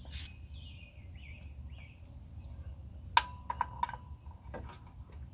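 Metal hand tools clinking: a socket and extension knocking as they are worked down toward a deep-set spark plug, a handful of sharp ringing clicks starting about three seconds in, the first the loudest.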